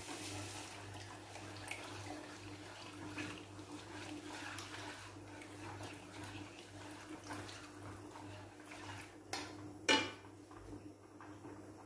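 A spoon scraping beaten egg out of a ceramic bowl into a frying pan while wooden chopsticks stir in the pan, giving light scrapes and small clicks over a steady low hum. A sharp clink about ten seconds in.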